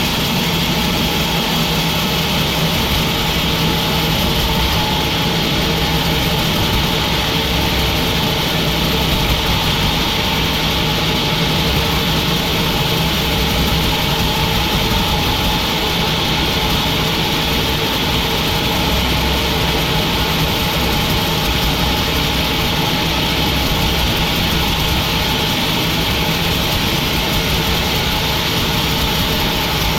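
Sawmill machinery running steadily: a continuous engine-like drone with a steady higher whine over it, unbroken throughout.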